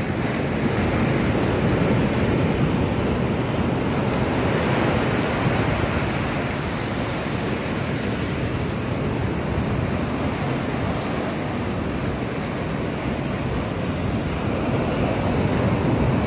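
Surf breaking and washing over the shallows in a steady rush that swells slightly every few seconds.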